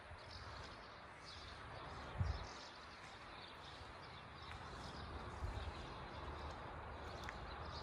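Outdoor background noise with faint bird chirps, and a low thump about two seconds in.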